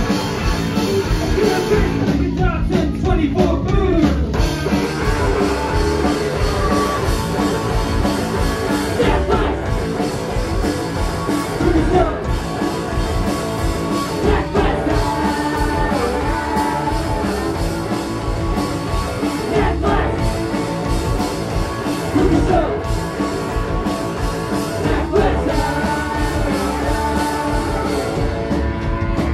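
A rock band playing live and loud: electric guitars over a full drum kit, a steady full-band sound.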